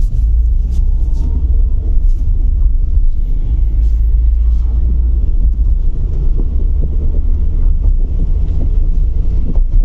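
Steady low rumble of road and engine noise inside the cabin of a first-generation Ford Figo petrol hatchback cruising at speed.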